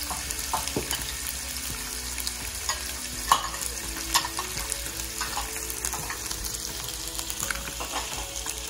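Food frying in a pan of hot oil: a steady sizzle with many small crackles and pops, and two sharper clicks about three and four seconds in.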